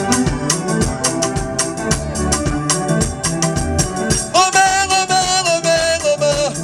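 Music with organ-like keyboard chords, bass and busy, fast percussion; about two-thirds of the way through, a held, wavering melody line comes in above it.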